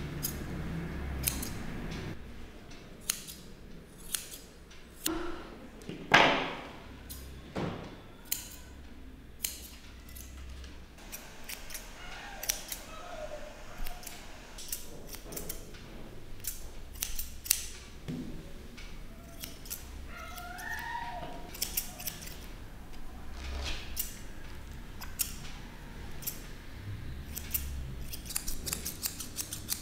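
Grooming scissors snipping the face and ear fur of a Yorkshire terrier puppy: short, sharp, irregular snips that come in a quick cluster near the end.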